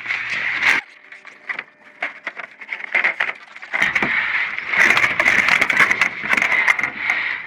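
Scraping, rustling and knocking as heavy boxes of cable are shifted and lifted in a dumpster, with many sharp clicks. It goes quieter about a second in and picks up again about four seconds in.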